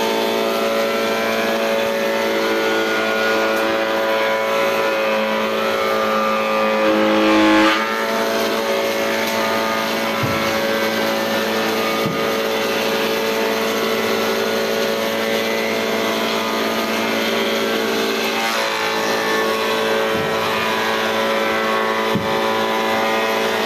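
Combination jointer–thickness planer running steadily with a pitched motor and cutterhead whine as a wooden board is planed. It gets louder with a brief rising pitch about seven and a half seconds in, and a few faint knocks come later.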